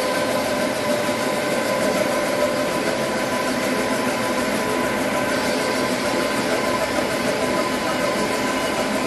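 Dry offset cup printing machine running at speed: a steady mechanical running noise with several steady tones, unchanging throughout.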